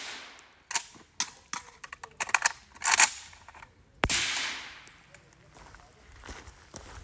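Suppressed Zastava M92 short AK rifle (7.62×39 mm) firing a string of sharp shots at irregular spacing through the first three seconds, with a louder shot about four seconds in, followed by fainter clicks.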